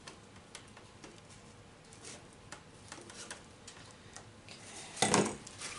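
Light, scattered clicks and taps of small parts being handled, then a single louder knock about five seconds in.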